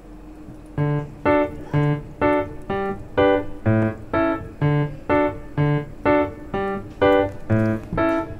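Background music: a keyboard melody of evenly paced single notes, about two a second, starting about a second in over a faint low hum.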